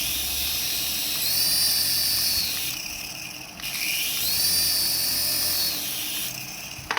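Small electric motor of a remote-control toy whining at high pitch. It speeds up about a second in, drops out briefly in the middle, then speeds up again.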